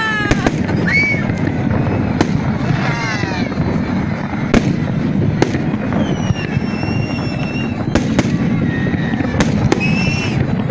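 Fireworks going off in a dense, continuous crackle with frequent sharp bangs, and several high whistling tones rising above it.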